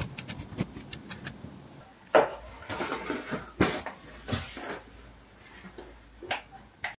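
A few light knocks and clicks at uneven intervals over quiet room tone, with the clearest ones a little after two seconds and again between three and a half and four and a half seconds in.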